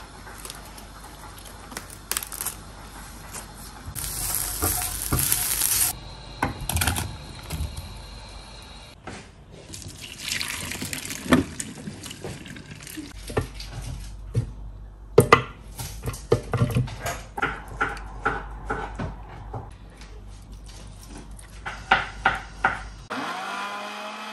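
Kitchen sounds: water splashing into a stainless steel sink as boiled spaghetti is drained through a colander, then a run of light knocks and clicks from utensils and ingredients. Near the end a countertop blender motor starts with a steady hum.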